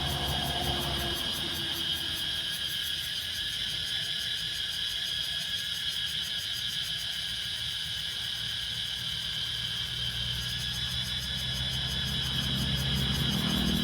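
Cicadas chorusing in a steady, continuous high buzz. A low vehicle engine rumble fades out in the first second and builds again from about ten seconds in.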